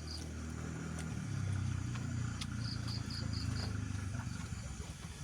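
A motor vehicle engine, most likely a passing motorcycle, running with a low hum that grows louder about a second in and fades near the end. A quick run of five short high chirps sounds midway.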